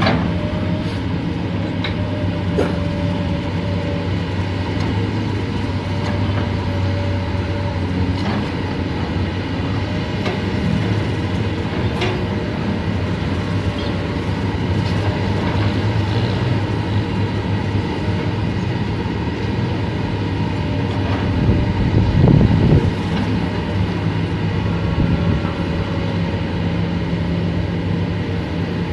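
Excavator engine running steadily under load, with a low hum, a faint steady whine and occasional clanks. It grows louder for a moment about three-quarters through, as if pushed harder.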